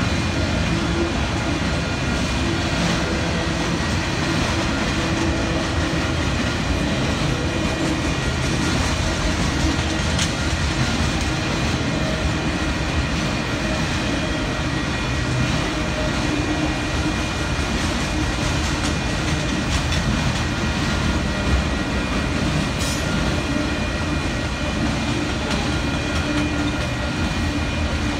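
BNSF freight train of autorack cars rolling past: a steady noise of steel wheels on the rails that holds evenly throughout.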